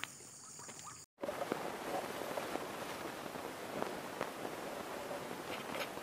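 Faint steady high insect drone, cut off abruptly about a second in. It is followed by a steady outdoor hiss with scattered faint ticks and rustles.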